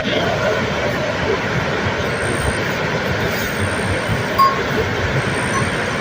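Heavy rain falling, a steady even rushing noise, with a brief small knock about four and a half seconds in.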